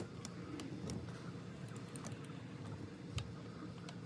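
Scattered light clicks and small metallic knocks of a bicycle's brake being reattached by hand, over a low steady hum.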